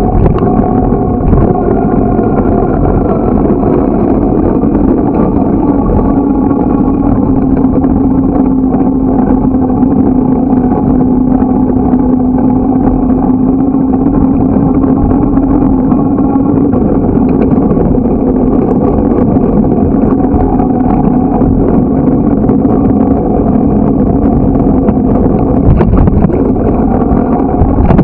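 Steady rush of wind and rolling noise picked up by a bicycle-mounted camera while riding along a paved path, with a steady low hum running underneath.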